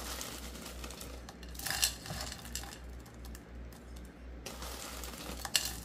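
Frozen green peas clicking and rattling as they are dropped by hand from a plastic freezer bag into a metal saucepan. Louder clatters come about two seconds in and again near the end.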